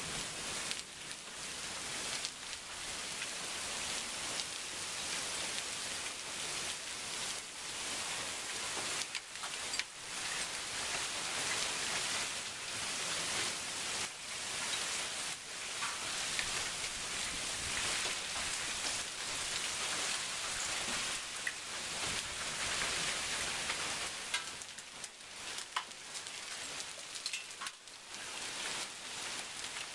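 Heavy thunderstorm rain pouring steadily: a dense hiss with scattered little drop ticks close by.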